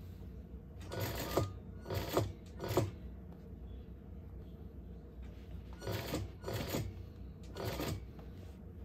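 Juki industrial sewing machine stitching in six short bursts of a few stitches each, in two groups of three, as a purse gusset seam is eased around under the presser foot.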